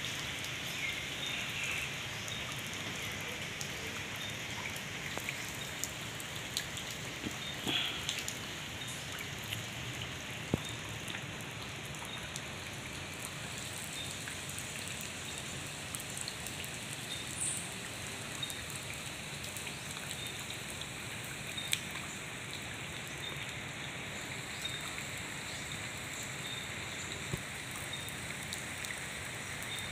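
Steady rain: an even hiss with scattered sharp drip ticks.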